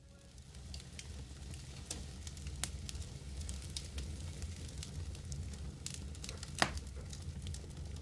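Scattered crackles and pops over a low steady rumble, with one sharper, louder pop a little over six seconds in.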